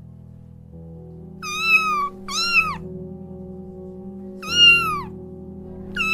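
Kitten meowing four times, each call high and arching up then down in pitch, over soft background music; the last meow starts near the end.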